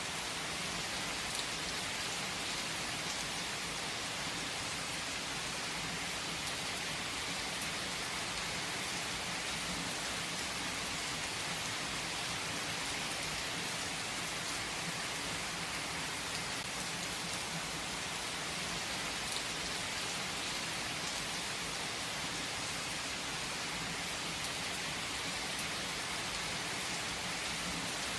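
Steady rain falling on a surface, an even hiss of countless drops with a few separate drops ticking now and then.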